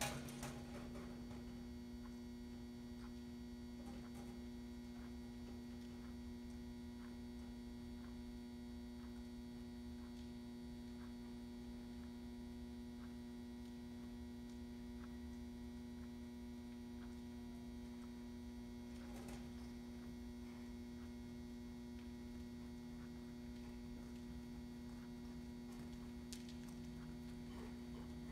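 Steady electrical mains hum, with faint, evenly spaced soft ticks under it.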